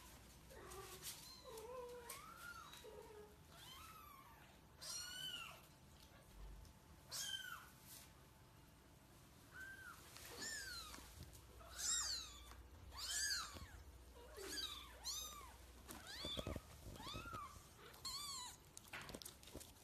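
Kittens mewing over and over: short, high-pitched mews that rise and fall in pitch, coming more often and louder in the second half.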